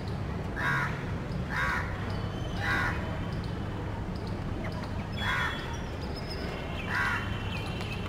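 A crow cawing five times: three caws about a second apart, then two more spaced out later. Under the caws is a steady low rumble, with faint chirps of small birds.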